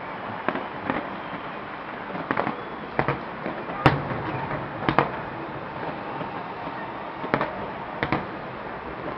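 Fireworks and firecrackers going off at a distance: a steady crackling din with separate sharp bangs every second or so, the loudest about four seconds in and another strong one at five seconds.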